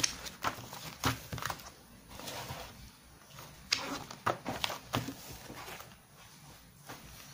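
Handling noises: scattered clicks, taps and rustles of paper manuals and plastic parts being picked up and leafed through.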